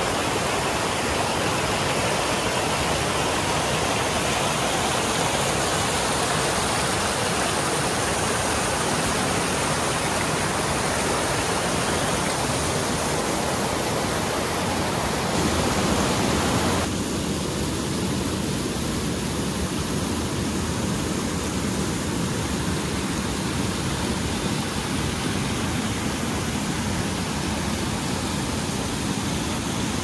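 Steady rush of flowing snowmelt water. Its tone shifts and it gets a little softer about seventeen seconds in.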